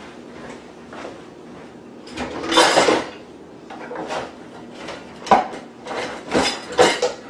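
A kitchen drawer sliding open with a rattle of its contents, then several knocks and clunks of objects being handled.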